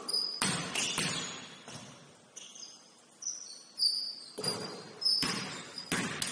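Basketball shoes squeaking on a gym floor in several short, high squeals, with a few echoing thuds of a basketball bouncing.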